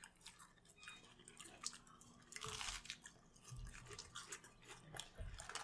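Quiet eating at a table: chewing and crunching on burgers and fries, with small clicks, a short rustle of paper about two and a half seconds in, and a few soft thumps.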